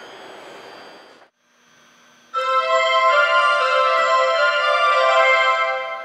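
The rolling noise of a Yokohama Municipal Subway 3000S train arriving, which cuts off about a second in. After a brief near-silent gap, a station departure melody starts about two seconds in and plays on loudly as a bright tune of chiming notes.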